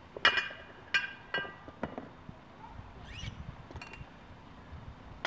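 Metal clinking as weight plates and a collar are handled on a steel barbell sleeve: four sharp, ringing clinks in the first two seconds, then a short rising squeak about three seconds in and a few lighter clicks.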